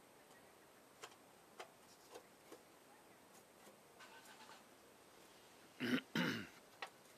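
A few faint light ticks and clicks, then about six seconds in two short, loud, voice-like sounds in quick succession, such as a cough or a bark.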